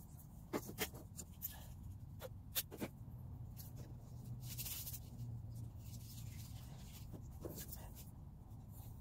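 Faint handling sounds of scissors, tape and paper at a plastic table: several sharp snips or clicks in the first few seconds, a brief rustle near the middle and one more click near the end.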